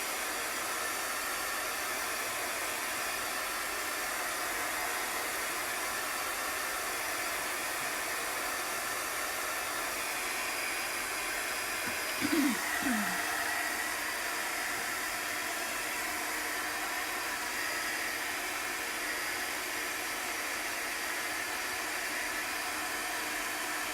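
Handheld dryer blowing steadily, drying freshly applied chalk paste on a craft tag.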